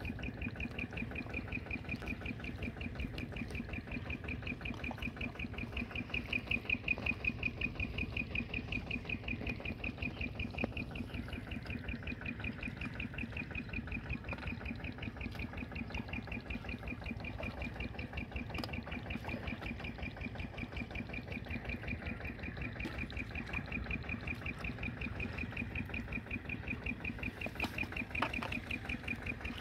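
An insect chirping in fast, even pulses that never stop, over a low rumble and a faint steady hum. The chirp is a little louder about six to eight seconds in.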